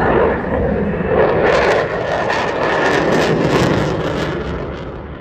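Eurofighter Typhoon's twin EJ200 turbofan jet engines, loud as the jet flies past. A pulsing, crackling rasp sets in about a second in, and the noise fades away near the end.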